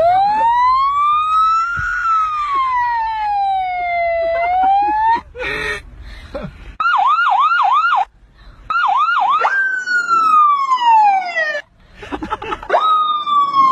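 Electronic siren run through different tones, stopping and starting several times. First comes a slow wail that rises and falls over about five seconds. After a break there are two short runs of quick yelping sweeps, then long falling sweeps, one of them starting near the end.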